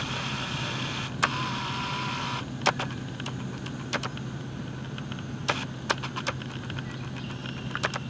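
A steady low hum with scattered sharp clicks, and a brighter hiss with a faint steady whine over it for the first two and a half seconds.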